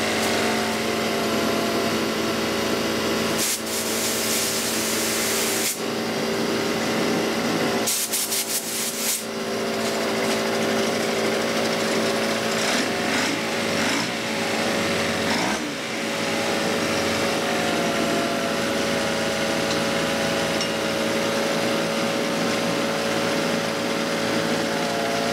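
Honda four-stroke outboard motor running steadily, with two short stretches of hiss, a few seconds in and again about eight seconds in.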